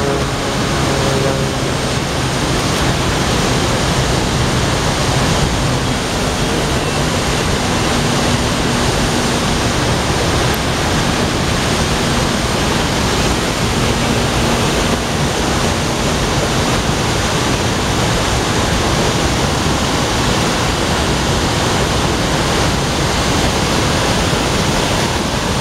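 Steady rushing of a fast, shallow river running over rocks: an even, unbroken wash of water noise.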